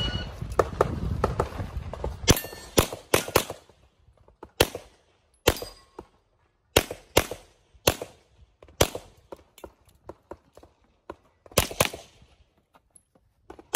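Shot timer's start beep, then a string of pistol shots, many fired in quick pairs, with short pauses between groups.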